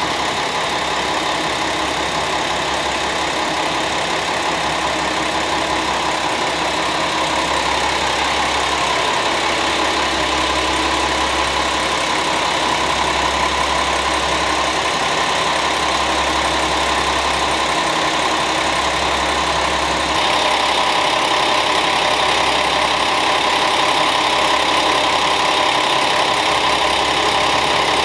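JR West KiHa 40-series diesel railcars with their engines running steadily, a low pulsing throb under a steady hum. About 20 seconds in, the sound grows louder and brighter as an EF210 electric freight locomotive approaches on the adjacent track.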